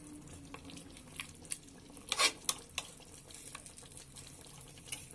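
Metal ladle stirring beef in gravy in an open pressure cooker pot: soft sloshing of the liquid with several sharp clinks and scrapes of the ladle against the pot, the loudest a little past two seconds in.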